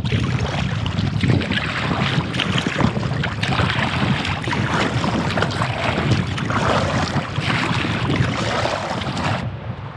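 Double-bladed kayak paddle strokes splashing and water rushing along the hull of a sit-on-top kayak, with wind buffeting the microphone as a low rumble. The splashing and wind drop away abruptly near the end.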